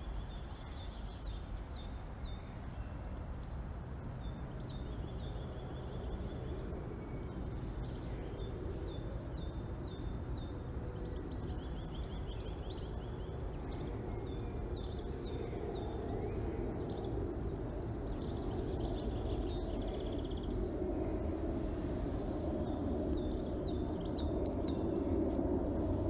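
Outdoor street ambience: small birds chirping on and off over a steady low rumble of traffic that grows louder in the second half.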